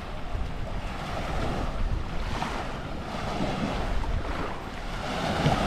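Sea waves washing onto the shore, with wind buffeting the camera's microphone in a low, gusty rumble.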